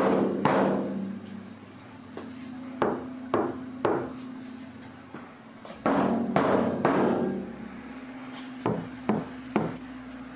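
Knocking on a van's sheet-metal body panels in sets of three, alternating between knocks that ring on and die away slowly and short, dull knocks: bare metal compared with metal covered in sound-dampening pads.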